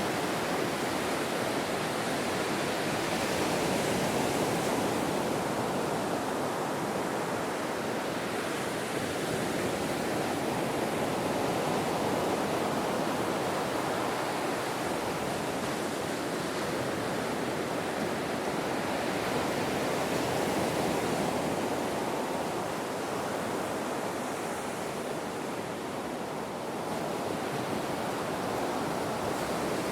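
Surf on a beach: waves breaking and washing in one after another, a continuous rushing noise that swells and eases every few seconds.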